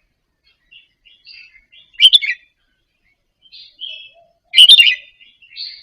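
Red-whiskered bulbul singing: soft twittering phrases, broken by two loud ones about two seconds and four and a half seconds in.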